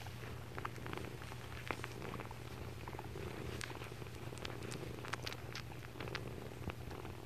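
Mother cat purring close to the microphone: a steady low rumble, with scattered small clicks and rustles over it.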